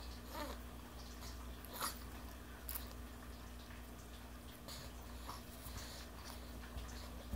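Quiet room with a steady low hum, and a few faint wet smacks and clicks from a toddler chewing finger food and sucking on his fingers.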